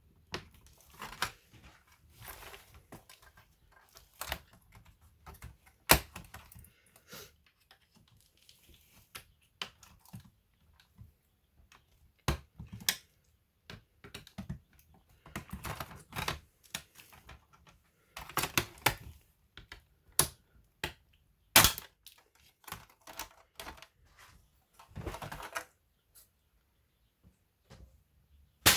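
Hands working on a Samsung RV518 laptop: irregular sharp clicks and taps of plastic parts and tools, with stretches of scraping and rustling in between, several loud single clicks standing out.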